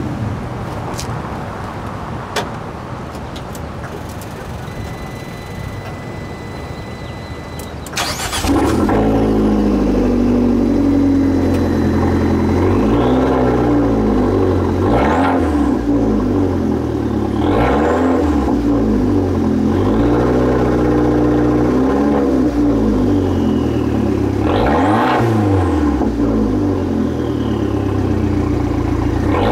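Fiat 500 Abarth's turbocharged 1.4-litre four-cylinder starts from cold about eight seconds in. It settles into a loud idle through its exhaust and is blipped up and back down several times.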